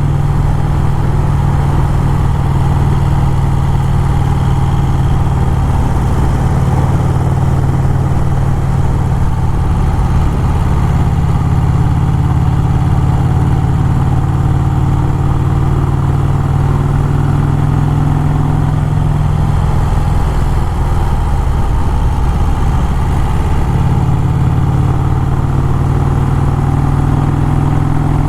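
1951 Vincent Rapide's 998 cc V-twin engine running steadily under way, with a slight change in engine note about two-thirds of the way through.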